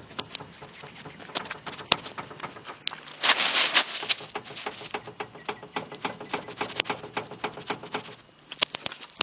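Steering rack of a Skoda Fabia knocking: a run of irregular sharp knocks, with a louder, noisier stretch about three seconds in. The knock is the sign of a worn steering rack.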